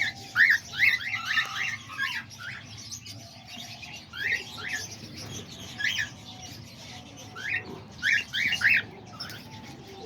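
Cockatiels calling in an aviary: many short, rising chirps, coming in clusters with short lulls between.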